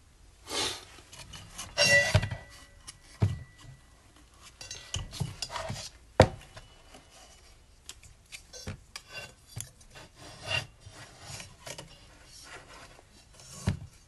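Plastic squirrel-cage blower fan and motor assembly being picked up and turned over by hand on a tabletop: irregular scraping and clicks of plastic, with a sharp knock about six seconds in. The motor is not running.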